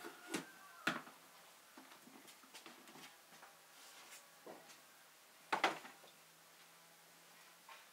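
Dishes and a tray handled on a tabletop: light clicks and knocks as a plate and plastic lid are set down, and a louder knock about five and a half seconds in as the metal tray holding the raw goose is moved.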